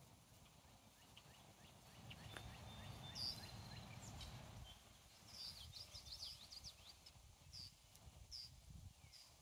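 Faint chirps and chip notes from a small songbird, thought to be a sparrow: a quick run of chirps about five seconds in, then single chips about once a second near the end. A soft low rumble on the microphone sits under the first half.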